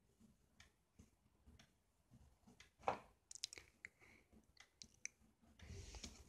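Faint clicks and small taps of hands handling a pencil lead and paper, with one louder click about three seconds in and a brief faint scratchy rustle near the end.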